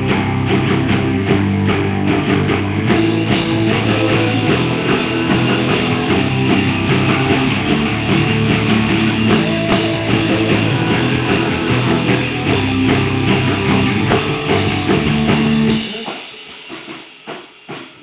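Rock band playing live: guitars and drum kit in a full, loud passage. The playing breaks off near the end, leaving a few quieter scattered notes and hits.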